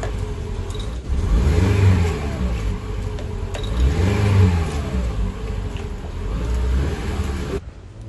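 Car engine being revved by foot on the accelerator: the engine note rises and falls, swelling twice, then cuts off abruptly near the end.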